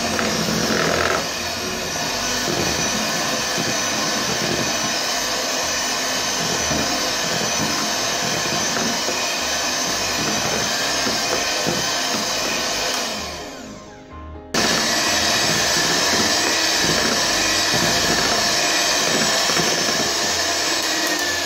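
Electric hand mixer running steadily with a motor whine, its beaters whisking chocolate cake batter in a plastic bowl. The sound fades down about two-thirds of the way through, then comes back abruptly.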